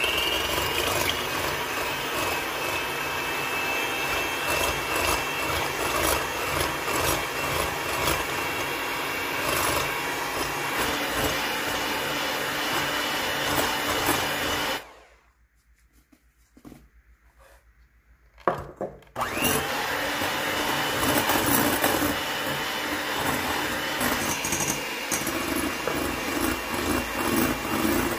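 Electric hand mixer running steadily, switched off about fifteen seconds in and switched on again a few seconds later, with a short knock just before it restarts.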